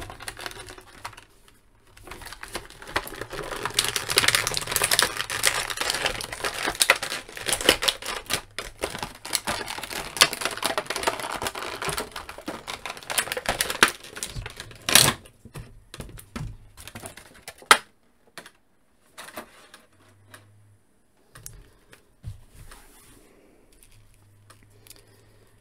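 Clear plastic packaging crackling and crinkling as an action figure is pulled out of its tray and plastic bag: a dense run of crackles for about twelve seconds, one sharp click about fifteen seconds in, then a few scattered clicks and only faint handling sounds.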